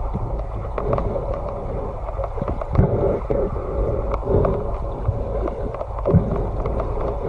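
Muffled underwater noise: a steady low rumble of water with scattered small clicks and knocks.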